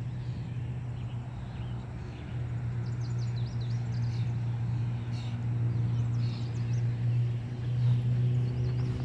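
A steady low hum with a few faint small-bird chirps now and then.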